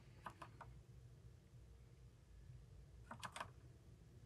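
Near silence broken by a few faint key clicks from a mechanical keyboard with brown switches: three or so just after the start and a quick cluster of about three a little after three seconds in.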